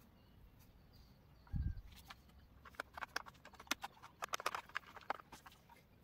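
Irregular light clicks and taps of wires and plastic screw-terminal connectors being handled on a wooden switchboard, with a single dull low thump about a second and a half in.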